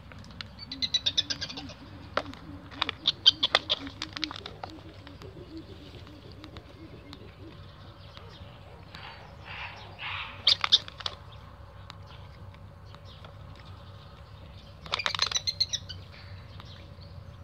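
Four short bursts of rapid, high-pitched chirping spread through, over a faint low wavering call in the first several seconds.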